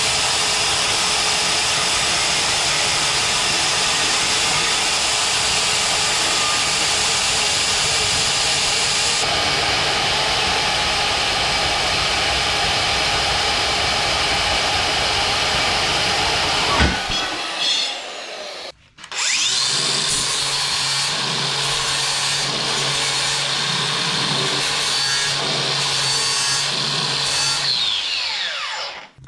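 Angle grinder grinding steel in two long runs with a short stop about 17 seconds in. The motor's pitch rises as it restarts and falls as it spins down near the end.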